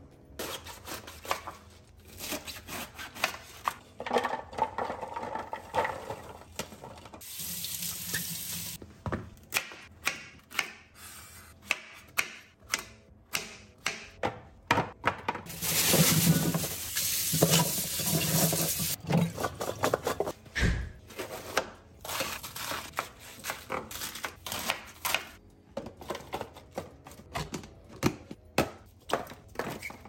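Vegetable prep at a kitchen sink: a string of light clicks and knocks as chopped vegetables and plastic storage boxes are handled. About halfway through comes a louder stretch of a few seconds of running water and a rustling plastic bag over a steel colander.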